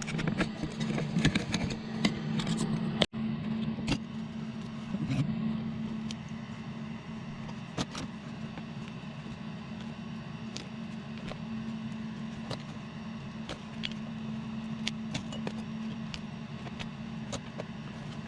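Steady low hum under scattered clicks, knocks and scraping from hands working on a chair's wooden frame, busiest in the first few seconds and sparser after.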